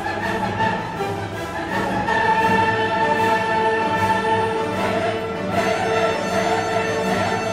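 Orchestral classical music with choral voices, playing long held notes.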